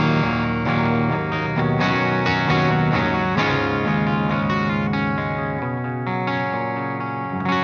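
Electric guitar tuned to E flat, played through the clean channel of a Splawn Quickrod 100 valve amp into a 1x12 cabinet with Celestion Greenback speakers. Clean chords and picked notes ring together, with steady picking attacks throughout.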